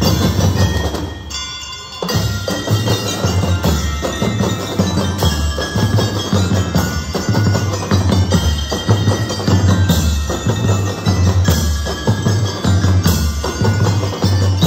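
Drum and lyre marching band playing: bass drums beat a steady rhythm while bell lyres ring out a melody. The sound drops briefly a little over a second in, then the band plays on.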